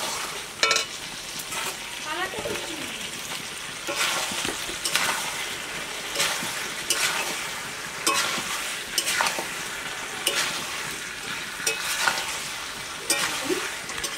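Mutton and potatoes sizzling in hot oil in a large metal kadai while a metal spatula stirs and scrapes the pan, with scraping strokes about once a second. This is the dry sauté (kosha) stage, when the meat is fried down with its spices before water is added.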